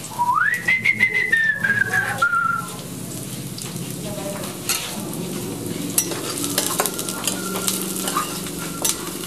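Food frying and sizzling in a pan, with repeated clicks of a utensil stirring it. Near the start a single whistled note rises and then slowly falls over about two seconds.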